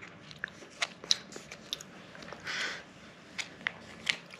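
Plastic Kinder Joy egg packaging being handled and opened: scattered small clicks and crackles, with a short rustle about two and a half seconds in.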